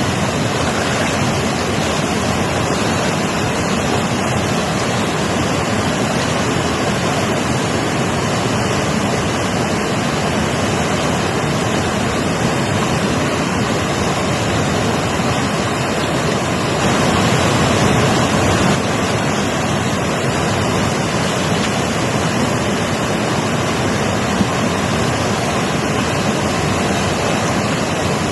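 Mountain river rushing over rocks: a steady, even roar of fast-flowing water, swelling slightly about two-thirds of the way through.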